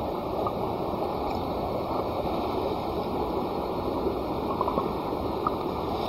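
Campfire burning with a steady rushing hiss and a few faint scattered crackles.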